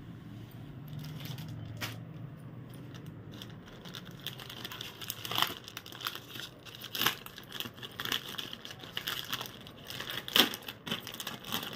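Clear plastic packing bag crinkling as it is handled, with irregular crackles starting about four seconds in.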